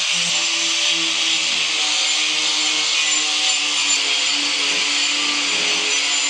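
Angle grinder with a carving disc running steadily as it cuts into a block of cedar, with a continuous high, gritty grinding.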